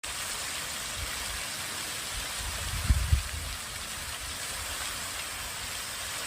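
Steady splashing and rushing of water from a garden water feature, with a couple of brief low thumps about three seconds in.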